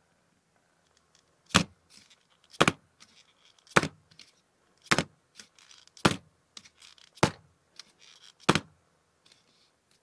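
A paper cup full of cake batter knocked down on the tabletop seven times, about once a second, the usual way of bringing air bubbles up out of the batter before it goes in the microwave. There is faint rustling of handling between the knocks.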